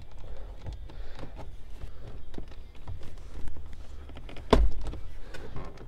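Plastic climate-control panel in a 2008 Honda CR-V dash being pried out with a flathead screwdriver and a plastic panel tool: light scraping and small clicks, with one sharp snap about four and a half seconds in.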